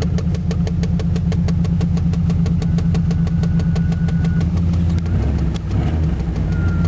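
Chevrolet 305 cubic-inch V8 of a K1500 pickup idling steadily just after it has been got running, heard from inside the cab, with an even beat of firing pulses. A faint thin whine comes in midway, and the engine note shifts about five seconds in.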